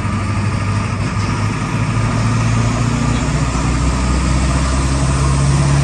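Pickup truck engine and road noise heard from inside the cab while driving, the truck holding in gear on a freshly installed manual transmission. The engine note strengthens and rises a little about two thirds of the way in.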